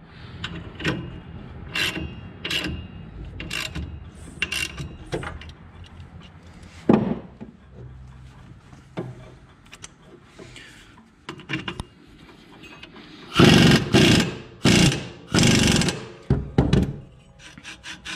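Impact wrench hammering in several short loud bursts from about thirteen seconds in, running down the bolt that holds the mower deck's PTO clutch on the engine crankshaft. Before that, scattered clicks and knocks of tools and metal parts being handled.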